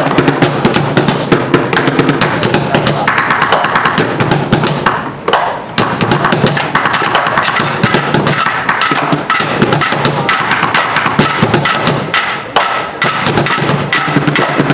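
Ensemble drumming on plastic trash bins and a bucket with drumsticks, with sticks also clacking on wooden stools: a fast, dense rhythm of many hits, briefly dropping about five seconds in.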